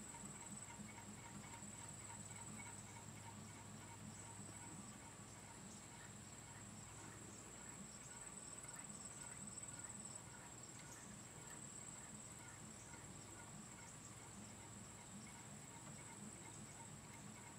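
Paillard 'Mercure' hot air (Stirling-cycle) fan running: a faint, quick, even ticking from its engine and crank linkage, over a steady high-pitched whine.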